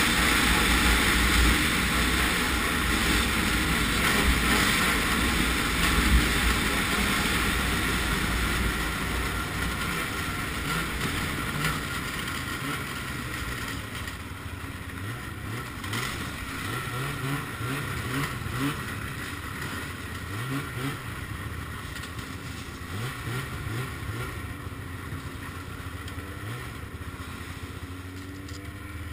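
Ski-Doo MX Z 700 snowmobile's two-stroke engine running at speed, then easing off. In the second half it runs slowly, with repeated short rises in revs as the throttle is blipped.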